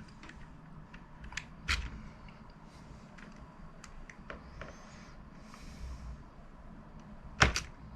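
A few scattered clicks and taps of keys being pressed on a computer keyboard, the loudest a sharp double knock near the end.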